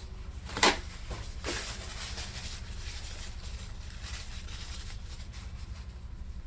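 Small handling noises from working on an opened laptop: a sharp plastic click just under a second in, then a couple of softer knocks, over a steady low hum.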